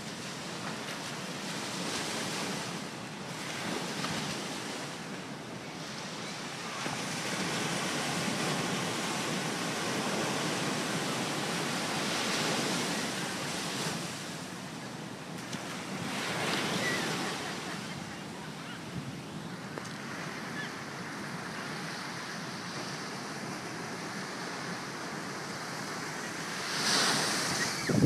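Ocean surf breaking and washing up a sandy beach, a steady hiss of water that swells and eases with each wave, with a louder surge near the end.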